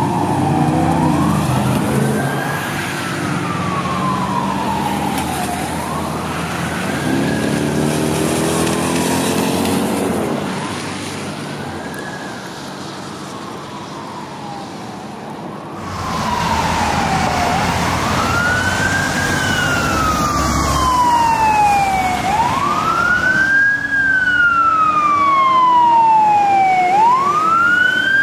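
Fire truck siren wailing, each cycle rising quickly and falling more slowly, about every three seconds, with the truck's engine revving as it pulls away. The siren fades into the distance, then about halfway through comes back much louder and closer as a second fire engine passes.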